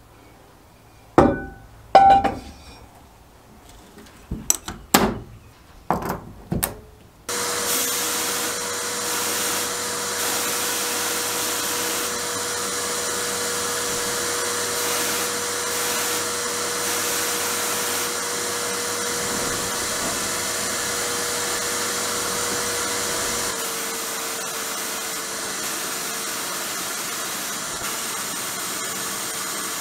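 Several knocks and clunks as the cast iron pot is handled at the sandblast cabinet, then about seven seconds in the sandblasting gun starts: a loud, steady hiss of compressed air and abrasive blasting the rusty cast iron inside the cabinet, with a faint steady tone beneath it. The hiss drops a little in level about three-quarters of the way through.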